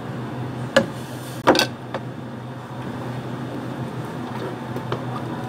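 A spoon and plastic drink containers being handled, giving a few sharp knocks and clicks, the loudest a quick double knock about one and a half seconds in, over a steady low hum.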